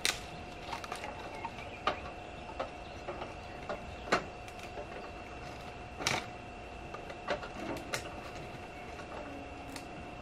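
Hand tools working on old truck metalwork: scattered metallic clicks and taps of spanners on nuts and bolts, with sharper knocks just after the start and about 4 and 6 seconds in.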